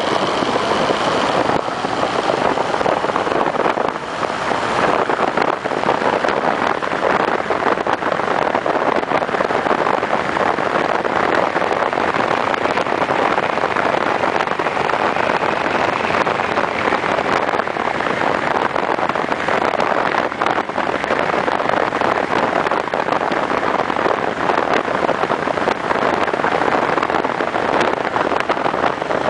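Onboard sound of a Honda CB1300 motorcycle riding at road speed: a steady rush of wind over the microphone mixed with engine and road noise.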